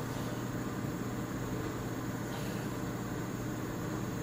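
Steady low hum with an even hiss over it, unchanging throughout: background drone of the recording with no event in it.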